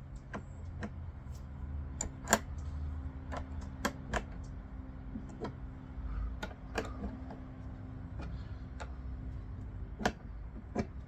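Open-ended wrench clicking and tapping on a petcock fitting as it is turned a half turn at a time into a plastic fuel tank: irregular sharp metallic clicks, the loudest about two seconds in, over a faint steady hum.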